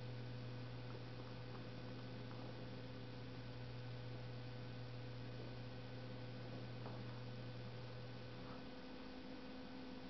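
Steady low electrical hum that stops about nine seconds in, with a few faint ticks.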